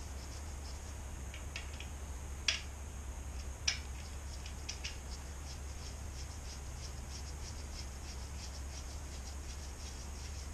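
Light metallic clicks and scratching from a motorcycle sump plug with a new washer being threaded back in by hand, two sharper clicks a little over a second apart among lighter ticks, over a steady low hum.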